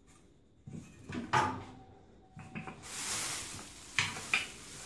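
Handling noises on a kitchen table: metal pastry cutters and a rolling pin being picked up and set down, with sharp knocks about a second in and twice near the end, and a plastic bag rustling in between.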